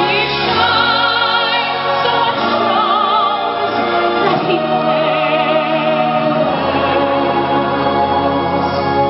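Music: long sung notes with vibrato over a steady sustained accompaniment.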